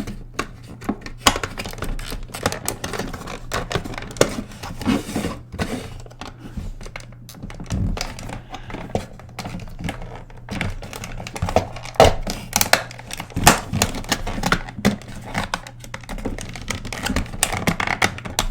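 Irregular clicks, taps and scraping of small plastic parts as the snap-on clips of a cheap quartz clock movement's plastic housing are pried at and popped off.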